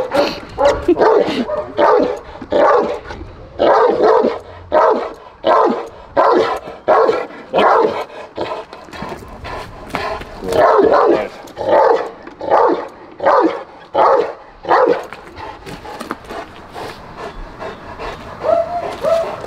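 Cane Corso barking repeatedly at the training decoy, about two barks a second, with a short pause partway through; the barking stops about three-quarters of the way in.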